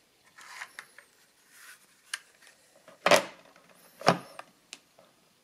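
A metal Lightning Adding Machine being handled and set back into its case: light rustles and clicks, then two sharp knocks about a second apart, about three and four seconds in.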